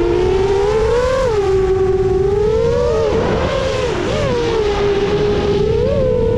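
Whine of a 7-inch FPV quadcopter's Emax Eco II 2806.5 brushless motors and HQ 7x3.5x3 three-blade props, the pitch rising and falling with throttle, with a dip and wobble about three to four seconds in. A rough rush of wind underneath.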